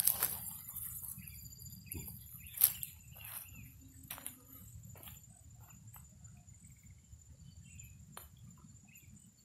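Faint rustling and scattered light clicks of someone moving about in grass, with one sharper click about two and a half seconds in, over a steady high insect drone and a low rumble.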